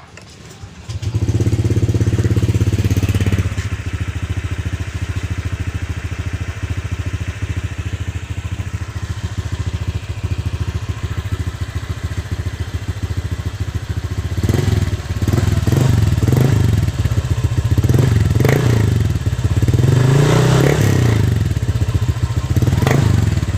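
Honda Click 125i scooter's single-cylinder engine running through a newly fitted MT8 aftermarket exhaust pipe. It comes up loud about a second in, settles to a steady idle after a few seconds, then from about halfway is revved in a series of short throttle blips, with one longer rev near the end.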